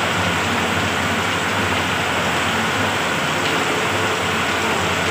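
Heavy rain pouring steadily onto a sheet-metal shelter roof and a flooded road, with a faint low hum underneath.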